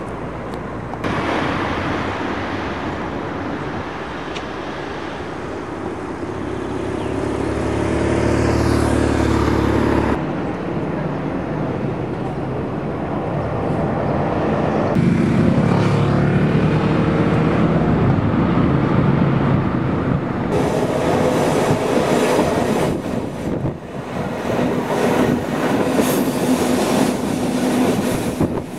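Outdoor rumble and noise across several spliced clips, changing abruptly at each cut. From about two-thirds in comes the red Rhaetian Railway Bernina train running, heard from on board, with steady wheel-on-rail noise and faint rhythmic clatter.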